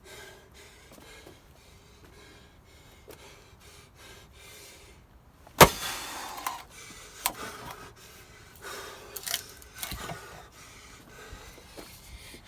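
A splitting axe striking a round of ash firewood: one loud, sharp blow about five and a half seconds in, with a brief crackle after it, then a few lighter knocks.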